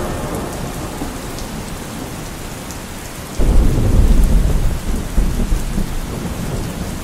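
Steady rain falling, with a clap of thunder breaking in about halfway through and rumbling low for several seconds before easing back under the rain.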